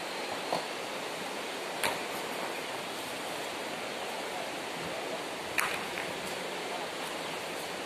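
Shallow river water rushing over rocks, a steady hiss, broken by three short sharp sounds about half a second, two seconds and five and a half seconds in.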